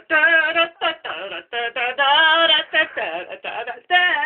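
A high voice humming a wordless tune note by note, with a longer, slightly wavering note held about two seconds in.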